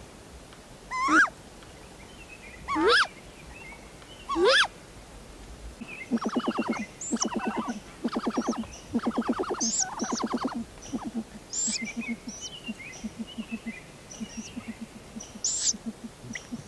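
Great gray owls calling at the nest. Three loud, short rising calls come about a second and a half apart. Then come several bouts of fast, rattling pulsed calls, with high thin squeaks over them that carry on more quietly toward the end.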